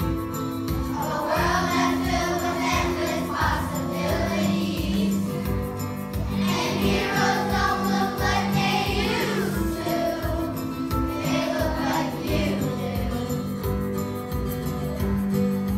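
A children's choir of third-graders singing together in phrases, over accompaniment music with a steady beat.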